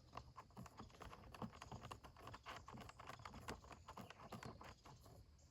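Screwdriver turning a bolt through the compost tumbler's panels, with the nut held by hand: faint, quick, irregular clicking and tapping of metal on metal and plastic.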